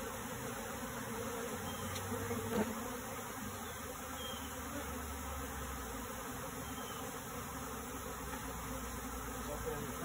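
A swarm of honey bees buzzing steadily around a hive box.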